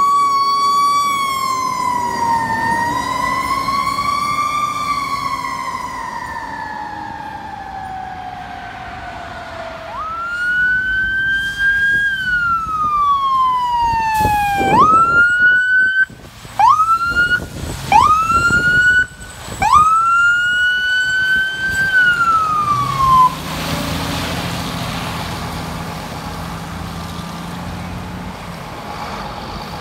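E-One fire trucks' sirens: one siren wails, rising and falling slowly. Then a siren is swept sharply up and down about five times in quick succession, some sweeps cutting off abruptly. Near the end it gives way to a fire truck's engine running.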